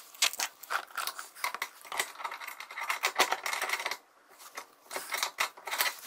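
A wrench clicking and clinking irregularly against a very tight brass fitting on an old, stiff water supply pipe under a dishwasher, mixed with rustling of a towel.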